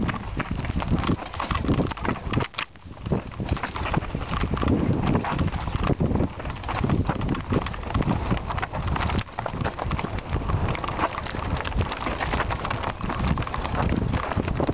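Mountain bike rattling down a loose rocky trail: tyres crunching over stones and the bike clattering in a dense, irregular run of knocks, briefly quieter about two and a half seconds in.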